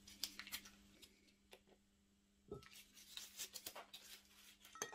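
Near silence: room tone with a faint steady low hum and a few faint ticks.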